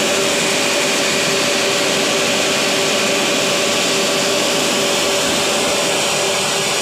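Steady mechanical whir and hiss from a running motor, with a constant hum of two held tones; it does not change.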